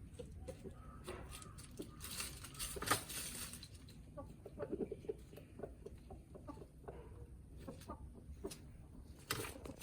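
Backyard chickens clucking softly while feeding, with short calls bunched together about halfway through and scattered small taps from pecking at the food.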